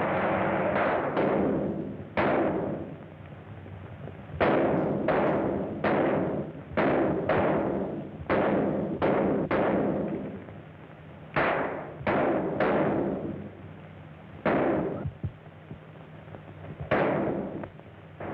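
Gunfire in a shootout: a string of irregular single shots, each echoing briefly, coming in clusters of two or three, with about seventeen in all. A steady low hum runs underneath.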